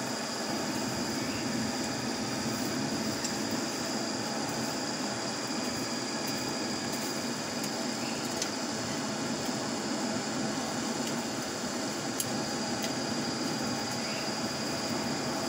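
Air-blown forge fire: a steady rushing roar with a faint high whine and a few sharp ticks from sparking coals, as a blade is heated toward red heat for hardening.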